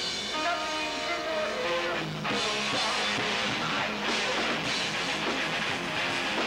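Rock band playing live: distorted electric guitar through an amp and a drum kit, held notes at first, then fuller playing after about two seconds.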